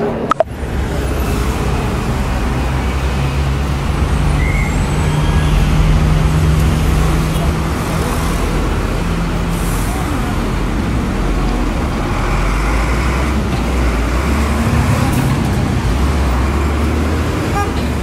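Road traffic noise: vehicle engines running close by over a continuous rumble of passing traffic, with a steady low engine hum that swells for several seconds, fades, and comes back near the end.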